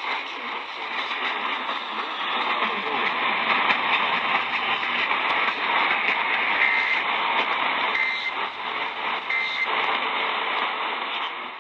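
Radio static hiss from a weather-alert broadcast receiver. Three short, faint data bursts, spaced about a second and a third apart, come through it past the middle: the EAS end-of-message tones closing the alert. The hiss cuts off suddenly at the end.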